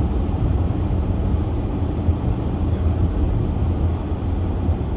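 Steady road and tyre noise with a low engine rumble inside a Toyota RAV4's cabin while it drives on a snow-covered highway.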